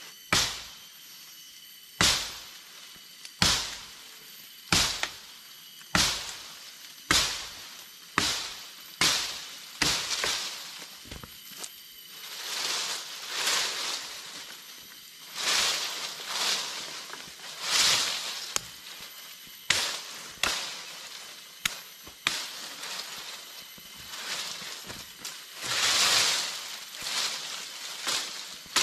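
Machete chopping into a fallen tree branch, a series of sharp strikes about a second or so apart. Longer swishing rustles of leaves and twigs come in among the chops in the second half.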